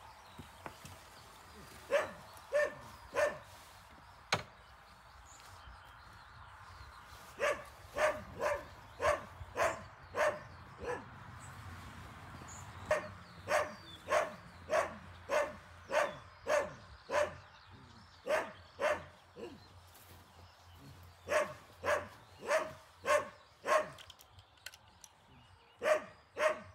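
A dog barking repeatedly, in runs of several sharp barks about half a second apart with short pauses between the runs.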